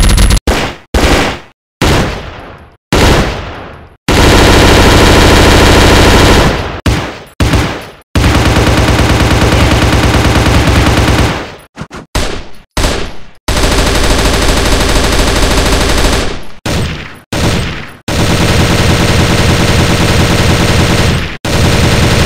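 A series of gunfire sound effects. Several single shots, each ringing out and trailing off, alternate with long stretches of continuous automatic fire, four of which last about two to three seconds each.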